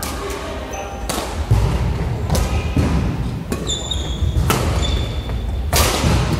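Badminton rally: rackets striking the shuttlecock about six times, one sharp hit every second or so, each ringing on in the echoing sports hall. Short high shoe squeaks on the court floor come between some hits.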